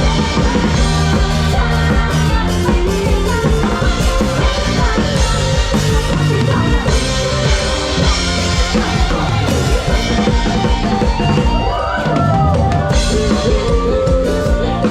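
Live band playing music, with a drum kit keeping a steady beat.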